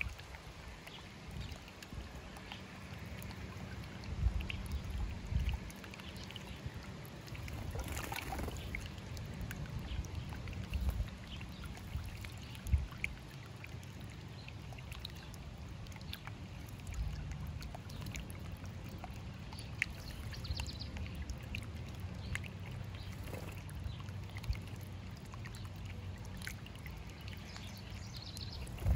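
Small bubbler fountain in a stone birdbath running, water trickling and splashing over the rocks with small irregular surges.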